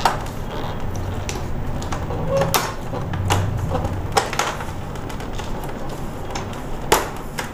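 Locking clips of an LED TV panel's frame clicking and snapping as the frame is worked loose by hand, several sharp clicks with the loudest near the end, over a steady low hum.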